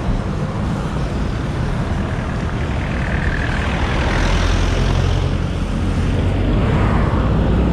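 Road traffic noise: a steady low rumble of vehicles that grows louder about halfway through.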